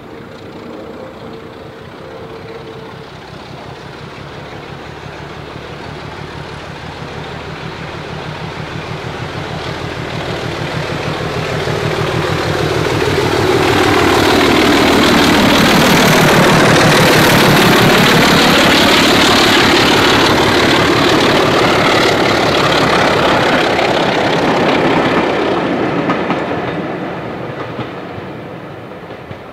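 British Rail Class 25 diesel locomotive, its Sulzer six-cylinder engine working under power with exhaust smoke, approaching and passing with a train of coaches. The engine's hum grows steadily to its loudest about halfway through, then the engine and the wheel noise of the coaches fade as it goes away near the end.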